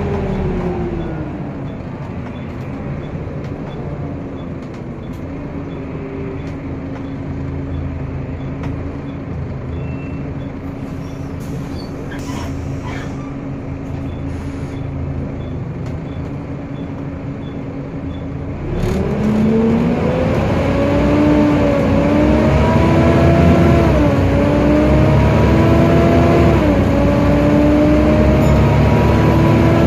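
Volvo B7TL double-decker bus's six-cylinder diesel engine heard inside the passenger saloon: its note falls away, holds steady for about fifteen seconds, then about two-thirds of the way through it rises again, louder, climbing in steps through several automatic gear changes as the bus accelerates.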